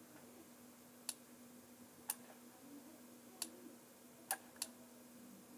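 Computer mouse clicking: five short, sharp clicks scattered irregularly, two of them close together near the end, over a faint steady hum.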